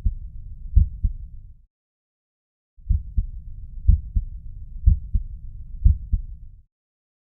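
Heart sounds heard through a stethoscope: paired lub-dub beats about once a second, with a murmur filling the gaps between them. The sound stops for about a second after the first two beats, then returns for four more beats and stops again near the end.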